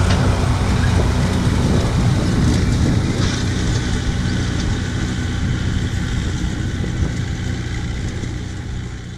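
Leyland 272 tractor's four-cylinder diesel engine running steadily under load while pulling a wheel rake, growing fainter toward the end as the tractor moves away.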